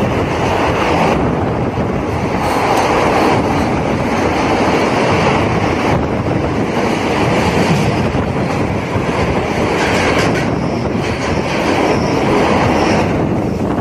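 Passenger train running through a tunnel: a loud, steady rumble and rattle of wheels and carriages, echoing off the tunnel walls.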